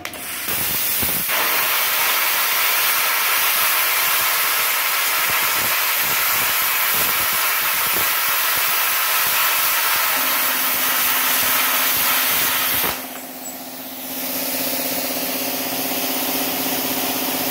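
Air plasma cutter torch cutting through a 10 mm steel bar: a loud, steady hissing rush of arc and compressed air that cuts off suddenly about 13 seconds in. About 10 seconds in, an electric two-cylinder piston air compressor switches on and keeps running with a steady hum after the cut ends.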